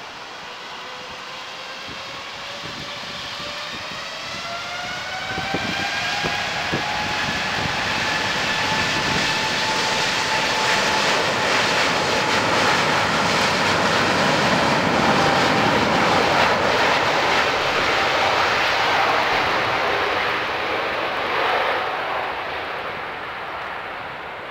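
Boeing 747-8 freighter's four GEnx turbofans spooling up to takeoff thrust: a whine rising in pitch over the first few seconds, then a loud jet roar that builds to a peak and fades toward the end as the aircraft takes off.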